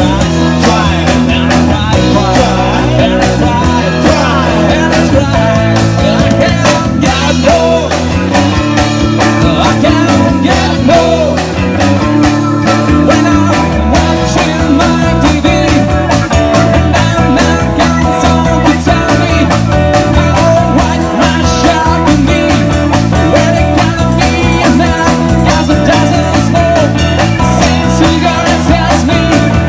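A rock band playing a song: guitars, bass and drums with a steady beat, and a voice singing.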